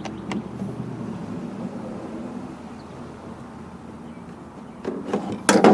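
Stihl BG55 leaf blower being pull-started: near the end a hard pull on the recoil starter cranks the two-stroke engine, which does not yet catch. Before that there is only a low steady hum.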